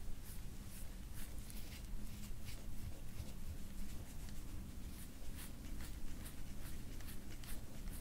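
Gloved hands rubbing and pressing into oiled skin during back massage: irregular soft scratching with many small crackling clicks, over a low room hum.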